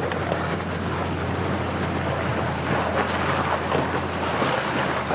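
Truck engine running steadily under load while towing a trailer through a rough, rocky creek crossing, with a steady rush of water and tyre noise and scattered knocks from rocks.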